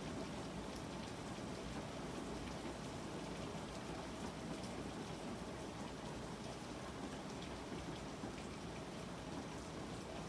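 Steady rain falling, an even hiss with scattered light drop ticks.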